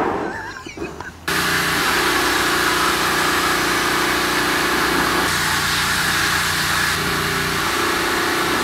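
Safety-Kleen parts washer spraying pressurized cleaning fluid onto a chainsaw casing inside its metal cabinet: a few knocks of handling, then about a second in the spray comes on suddenly as a steady hiss over a pump-motor hum.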